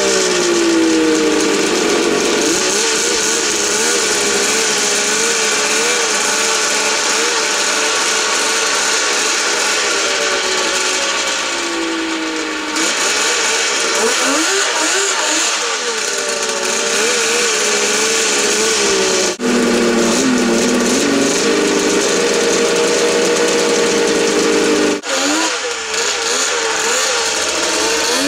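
Polaris XLT600 snowmobile's liquid-cooled two-stroke triple running as it is ridden through deep snow, its pitch wavering and rising and falling with the throttle, after a head gasket replacement. The sound breaks off abruptly twice, late on, for a moment each time.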